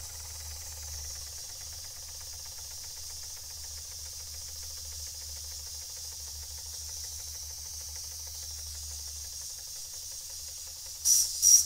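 Small toy steam engine boiler hissing steadily with escaping steam. Near the end its little steam whistle gives two short, shrill toots, much louder than the hiss.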